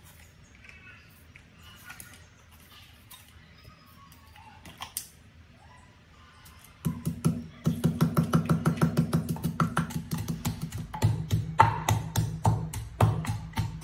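Pestle pounding garlic, red chilies and salt in a clay mortar: quick repeated strokes that start about halfway through, over background music with a steady low beat. Before that there are only a few faint small clicks.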